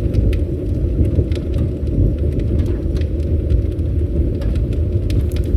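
Campfire burning: a steady low rumble of the flames with scattered sharp crackles and pops from the burning wood.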